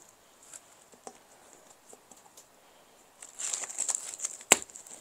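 Artificial plastic plant being handled: its leaves rustle and crinkle for the last couple of seconds, with one sharp click near the end, after a few faint ticks.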